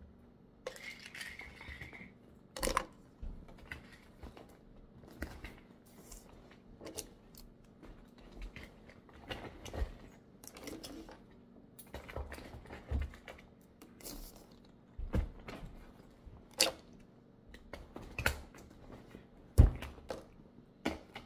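Small bottles, jars and other handbag items being packed back into a leather handbag and set down on a wooden table: irregular clicks, knocks and clatter, a few of them sharp and loud, the loudest near the end.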